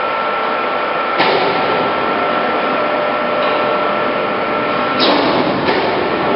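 A POREBA TCG 125 heavy-duty lathe running, a steady mechanical whine over continuous machine noise, with a clunk about a second in and two more around five seconds in.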